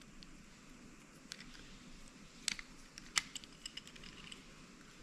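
Small metal parts of a Quantum Invade baitcasting reel clicking as they are handled and fitted back together: a few sharp little clicks, the loudest two about halfway through, then a quick run of lighter ticks.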